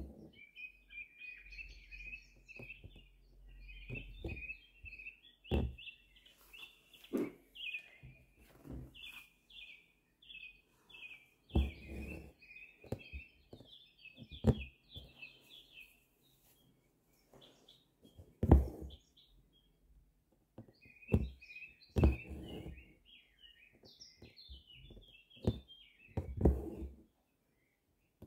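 Small birds chirping in quick twittering runs, broken by a pause, while an embroidery needle and thread are drawn through fabric stretched in a hoop, giving short rasps and taps that are the loudest sounds.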